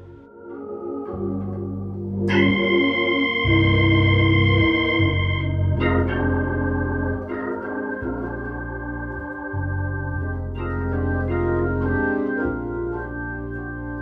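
Hammond B-3 organ playing held chords over changing bass notes. It starts softly and swells louder about two seconds in.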